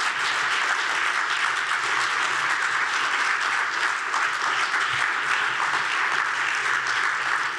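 Audience applauding steadily, a dense clapping.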